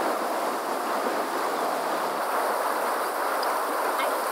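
Shallow river running over rocks, a steady rushing of water.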